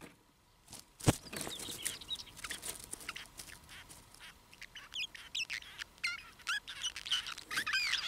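Booted warbler singing its fast, babbling song of short chirping notes, starting about a second in just after a sharp click.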